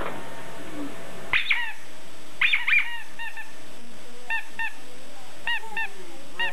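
Rubber balloon squeaking as it is rubbed: a string of short, high squeaks starting about a second in, coming in pairs and small groups.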